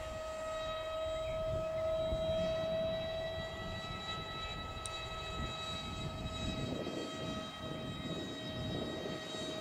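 A model airliner's 70 mm electric ducted fan running at steady throttle in flight: a high, even whine with overtones, over a low noisy rumble.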